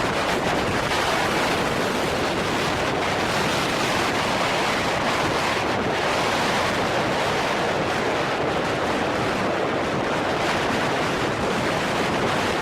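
Blizzard wind blowing hard and steadily, gusting against the microphone in a continuous rushing hiss.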